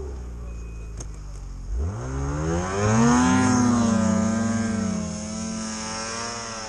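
Snowmobile engine running low, then revving up sharply about two seconds in and holding high revs, slowly fading toward the end.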